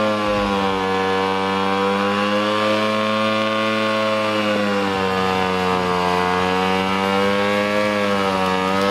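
Ducati sport motorcycle engine held at high revs during a stationary burnout, the pitch dipping and rising slightly as the throttle is worked while the rear tyre spins.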